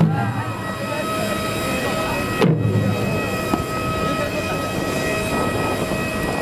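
Parked jet airliner's auxiliary power unit running with a steady whine of several high tones, over a background of people's voices.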